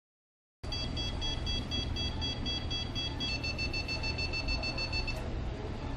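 Operating-room energy-device generator sounding its activation tones while the vessels are sealed: rapid pulsed beeping of a few notes at once, changing about three seconds in to a steady two-note tone that stops about two seconds later, over a low hum. The sound cuts in and out abruptly.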